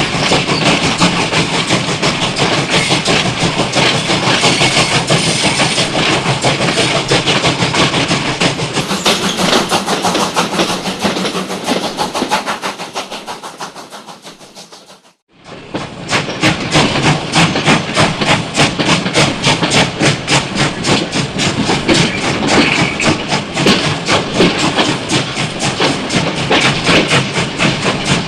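Train running on the rails with a fast, rattling clickety-clack of the wheels and cars. The sound fades away about halfway through, then comes back abruptly at full level.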